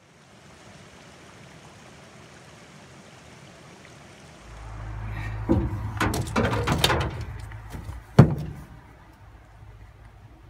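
Steady rush of a rocky stream, then a low rumble and a series of knocks and clatters as a spinning rod and reel is laid down on a pickup truck's bed, the sharpest knock a little after eight seconds in.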